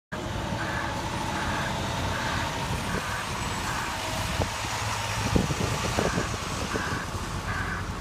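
Snow-plow truck and wheel loader running, with a steady low engine rumble and a backup alarm beeping about every 0.8 s. The beeping pauses briefly in the middle, where a few metallic clanks sound.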